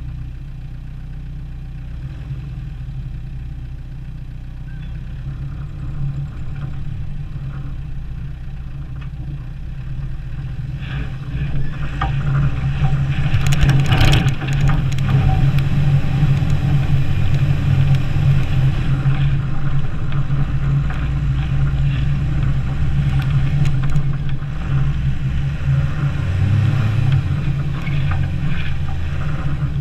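Land Rover Defender 90's engine running as it drives through snow, getting louder about midway as it pulls up a slope. A few knocks come at the loudest point.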